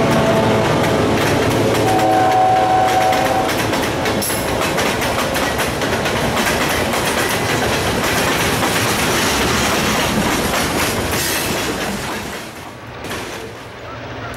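Freight cars rolling past close by: a steady rumble with the clatter and clicking of steel wheels over rail joints. A locomotive air horn sounds for a second or two near the start. About twelve seconds in, the train noise drops away abruptly.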